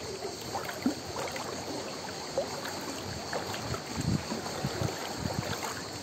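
Small sea waves lapping and sloshing against rocks and pebbles at the water's edge, with scattered small clicks and a few soft low thumps.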